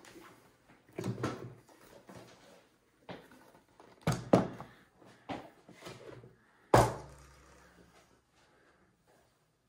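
Handling noise as model display pieces are moved and set down on a wooden tabletop: a run of knocks and thumps, the loudest a pair about four seconds in and a heavy thud about seven seconds in.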